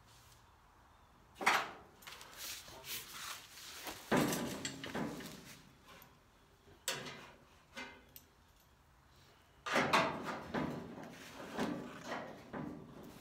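Metal roll pan knocking and scraping against the pickup's rear body as it is shifted and lined up by hand: irregular clunks, four louder ones a few seconds apart, with lighter scrapes and taps between.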